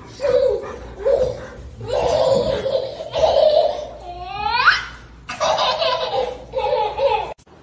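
A baby laughing in repeated short bursts of high-pitched belly laughs, with one sharply rising squeal about four and a half seconds in.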